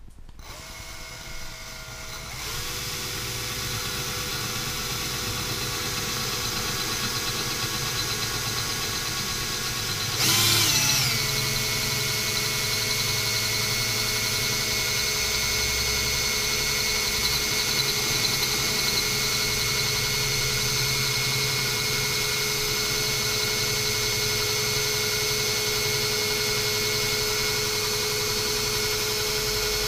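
Cordless drill running steadily while boring a hole through the glass of an empty rum bottle: a motor whine with a brief surge in speed about ten seconds in, after which it settles slightly lower and holds steady.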